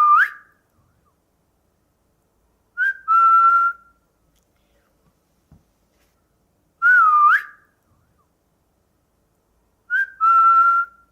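A person whistling short phrases about every three and a half seconds. The phrases alternate between a swooping whistle that wavers down and then rises, and a short higher note followed by a held steady note.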